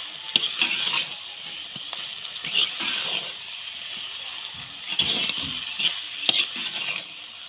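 Metal spatula stirring a thick chicken curry in an earthenware pot over a fire: wet squelching strokes every second or two over a steady sizzle, with a few sharp clicks. This is the final mixing of the finished chicken kosha.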